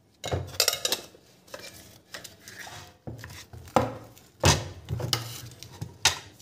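Metal casings of Bosch EDC16C39 engine control units being handled as one unit's cover is lifted off its circuit board: rattling and clinking, with several sharp knocks of metal on the bench, the loudest about four and a half seconds in.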